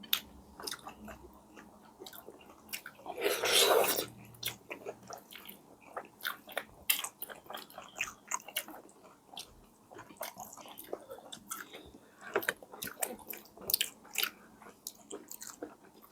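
Close-miked chewing and biting: quick, wet mouth clicks and smacks scattered through, with one louder, longer noisy burst about three seconds in.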